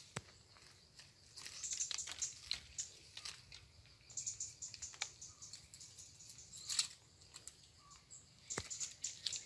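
Faint rustling of leaves and twigs in a tree as a small monkey climbs and tugs at branches, with a few sharp clicks and snaps scattered through it.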